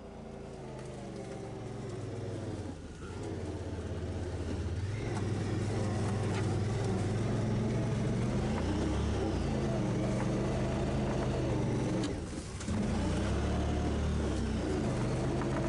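UTV engine running under load while driving through snow, its pitch rising and falling with the throttle; the engine note drops off briefly about twelve seconds in, then picks back up.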